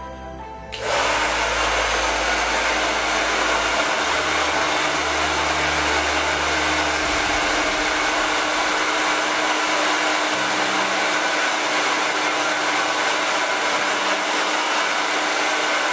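Handheld hair dryer switched on about a second in, then blowing steadily with an even rush of air and a constant hum.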